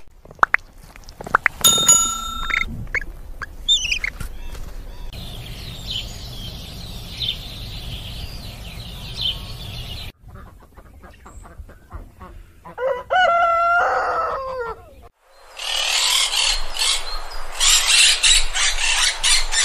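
Animal calls in a series of short clips cut together abruptly: high chirping calls, then a pitched call that bends up and down about two-thirds of the way through, then a louder, noisier stretch near the end.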